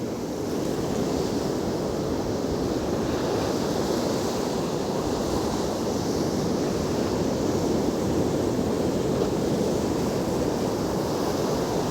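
Heavy surf of a rough winter sea: breaking waves making a steady rush, with wind buffeting the microphone.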